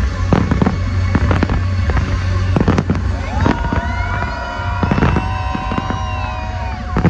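Fireworks display: rapid bangs and crackling bursts. From about three seconds in, several long whistles glide and bend over them.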